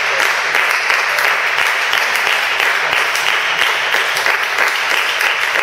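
Steady, dense crackling noise with the texture of sustained applause.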